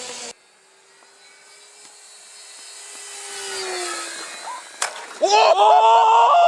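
An electric RC plane's motor whines as the plane approaches, growing louder and then dropping in pitch as it passes. About five seconds in comes a sharp click, followed by a loud drawn-out yell.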